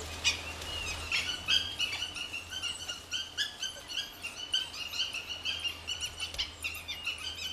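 Dhole pups begging the adults for food with rapid, repeated high-pitched squeals, several a second.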